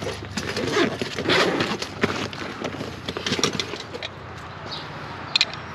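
A run of clanks and knocks from tools and soldered copper pipe being handled, thinning out after about three and a half seconds, with a few bird chirps toward the end.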